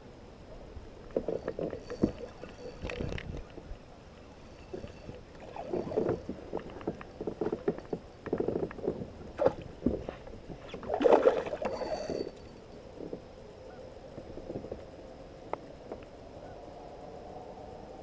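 Knocks and water noise from a kayak, coming in irregular clusters of bangs and rustles, loudest about eleven seconds in.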